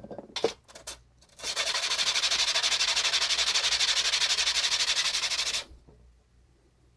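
Bicycle disc brake pad scrubbed rapidly back and forth on 220-grit sandpaper: a steady, fast scratching for about four seconds, cleaning rust and grime off the pad. A few light clicks of handling come just before it.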